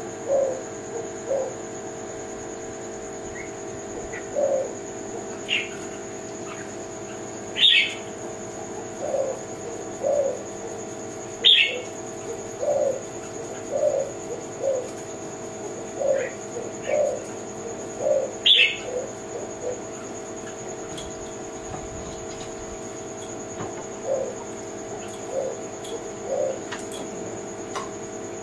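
Spotted dove (tekukur, Kelantan type) cooing in short low phrases repeated again and again. Now and then a sharp high chirp falls in pitch; the loudest come about 8, 12 and 19 seconds in. A thin steady high whine runs underneath.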